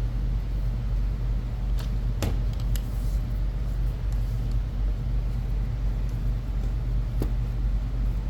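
Steady low hum of room machinery, with a few faint clicks of small metal parts being handled while the airsoft rifle's recoil kit cover is unscrewed.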